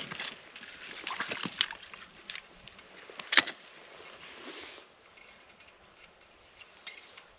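Handling noises from unhooking a freshly caught crappie: scattered clicks, scrapes and rustles, with one sharp click about three and a half seconds in, growing quieter after about five seconds.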